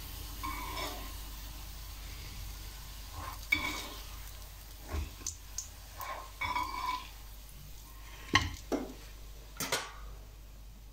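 Metal slotted spatula scraping and clinking against a frying pan as fried potato pancakes are lifted out, in scattered short strokes, with oil sizzling faintly underneath.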